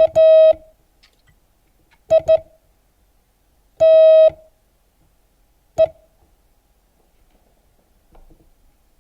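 Morse code practice tone, a steady electronic beep, sending the word "kite" letter by letter with long pauses between letters. The tail of K is followed by dit-dit (I) about two seconds in, a single dah (T) about four seconds in, and one short dit (E) near six seconds.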